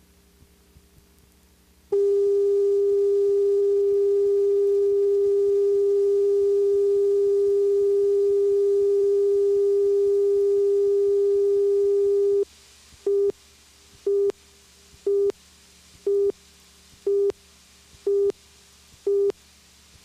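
Videotape leader between broadcast segments: about two seconds of near silence, then a steady reference tone held for about ten seconds, then seven short beeps of the same pitch about a second apart, as in a countdown.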